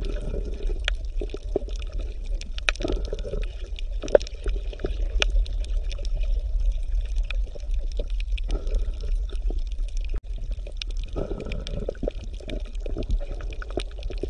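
Underwater ambience: a steady low rumble of moving water with bubbling and scattered sharp clicks.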